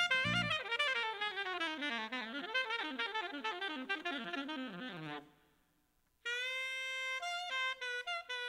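Alto saxophone playing a jazz passage with no accompaniment: a fast run of notes for about five seconds, a short break, then longer held notes.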